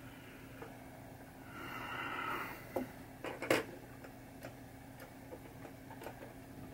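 Quiet handling noise from work on a pinball playfield's underside: scattered small clicks and taps, with a few sharper clicks around the middle, and a soft breathy exhale about two seconds in, over a steady low hum.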